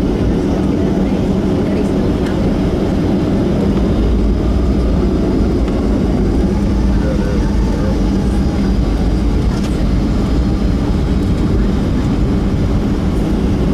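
Steady cabin noise of a Southwest Airlines Boeing 737 taxiing after landing, its jet engines at low power, heard from inside the cabin. A low steady hum runs under it and drops away about nine seconds in.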